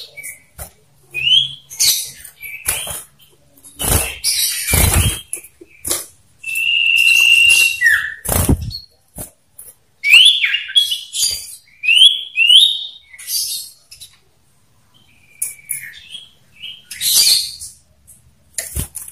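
Two male common ioras calling at each other in a territorial duel. Harsh chattering calls are mixed with short rising whistles and one long steady whistle about seven seconds in. A few loud fluttering bursts from the birds' wings come between the calls.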